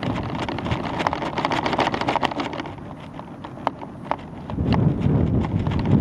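Wind buffeting the microphone of a camera on a weather-balloon payload in flight, with irregular clicks and knocks from the swinging payload. The low rumble of wind eases in the middle and swells again near the end.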